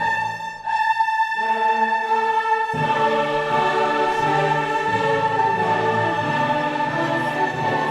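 Orchestra and choir performing a choral symphony, with long held chords. The lower parts drop out briefly about a second in and come back in partway through.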